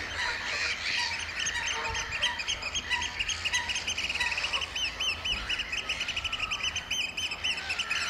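Eurasian oystercatchers piping: a long run of fast, shrill repeated notes, the piping display call. A few short, lower calls sound underneath.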